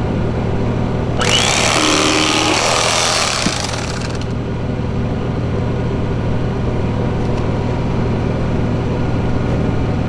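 A steady low machine hum, with a loud rushing hiss that starts about a second in and lasts about three seconds.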